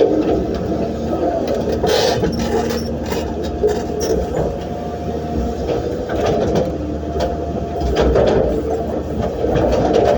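Hydraulic excavator's diesel engine running steadily under load, with scattered knocks and scrapes of the bucket working sand and stone.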